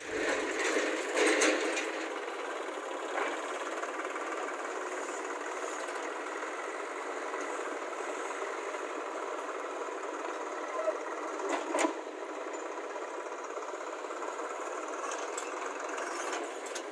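Swaraj 744 tractor's three-cylinder diesel engine running under way with a rapid, even chatter, pulling a loaded-down empty trolley across rough ground. Two louder knocks stand out, one about a second in and one about twelve seconds in.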